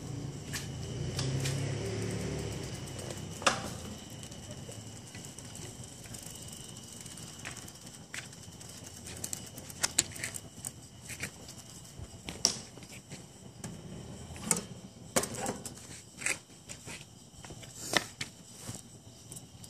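Bicycle being moved about on a carpeted floor close by: a low rumble for the first few seconds, then scattered light clicks and knocks.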